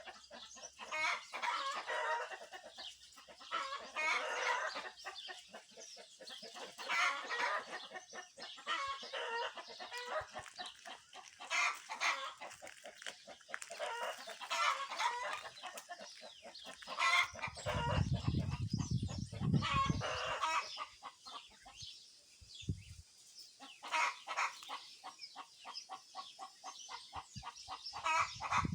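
Domestic hens clucking and cackling in repeated calls, with a rooster crowing and wild birds singing. A low rumble comes in for a couple of seconds just past the middle.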